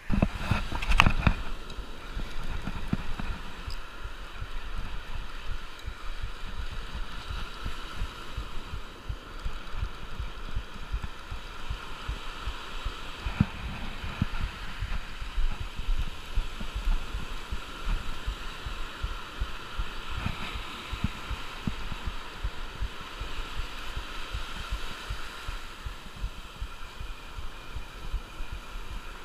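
Irregular low thumping and rumble of a chest-mounted camera's microphone being buffeted and jostled, over a steady hiss of surf.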